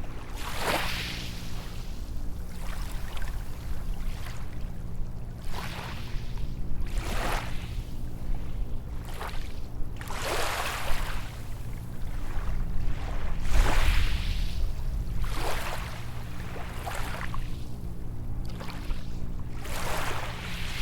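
Small waves breaking and washing up a sandy beach, a swish of surf every two seconds or so, the strongest about two-thirds of the way through.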